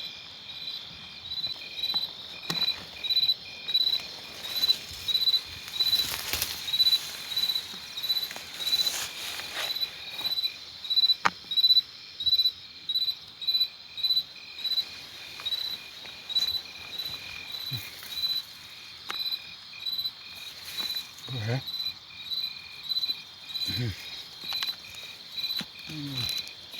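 Insect chirping in a steady, even rhythm: short high-pitched pulses a little more than once a second.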